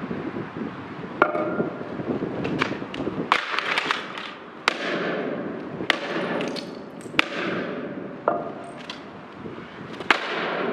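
Sledgehammer smashing an HP laptop on a concrete step: about ten sharp, irregularly spaced cracking blows. The laptop's plastic and screen break apart between them.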